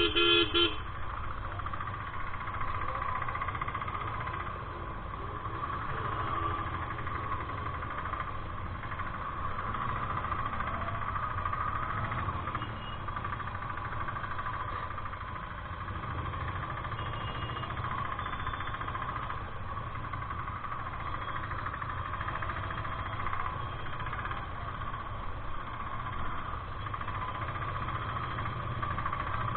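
Royal Enfield Interceptor 650's parallel-twin engine running steadily while riding, with road noise. A vehicle horn sounds briefly at the very start.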